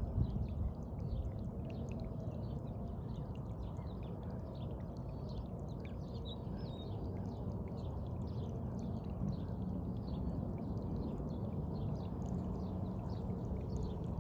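Outdoor ambience: small birds chirping in many short, quick calls over a steady low rumble.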